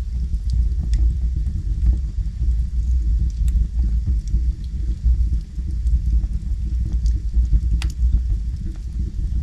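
Wood fire burning in a fireplace: a steady low rumble of flames with scattered small crackles, and one sharper pop about eight seconds in.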